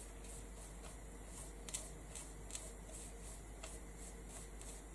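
Faint swishing and dabbing of a small flat brush spreading decoupage glue over rice paper laid on card, in soft repeated strokes.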